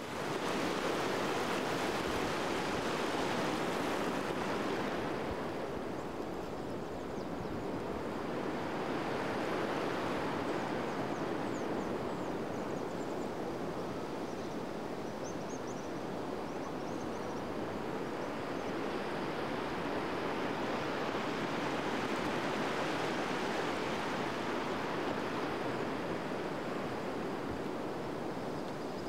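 Ocean surf washing onto a beach: a steady rush that swells and eases slowly, loudest in the first few seconds.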